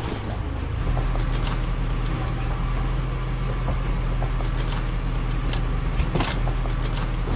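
Military truck engine running steadily with a low rumble, a few light clicks and knocks over it.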